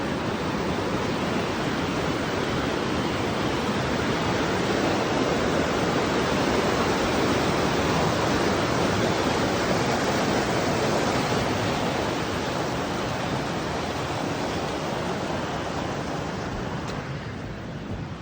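Rushing creek water, a steady rush that grows louder toward the middle and fades away near the end.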